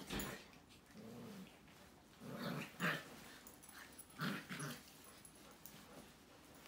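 Golden Retriever puppies growling and yipping as they wrestle: three short growls and yips, the loudest about three seconds in.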